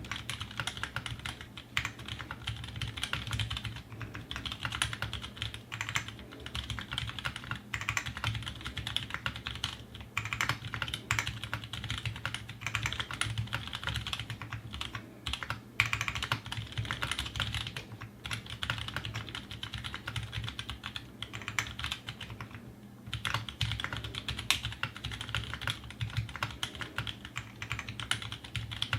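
Fast, continuous typing on a custom Aquaria 60% mechanical keyboard: tactile Halo Ergo switches (Halo housings, Cherry MX Clear stems) under GMK keycaps on an aluminium plate, giving a dense run of key clacks. There is a brief pause about three quarters of the way through.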